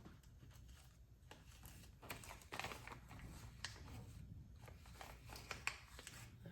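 Faint crinkling of small plastic parts bags and light clicks of small parts being handled while bearings are sorted out.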